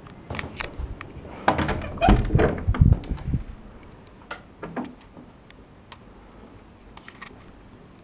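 A wooden panelled interior door being opened and handled: a cluster of latch clicks, knocks and low thumps in the first few seconds, then a few lighter clicks.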